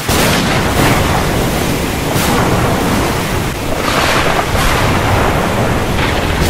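Tornado wind rushing loudly over the microphone, a steady noise that surges in gusts several times.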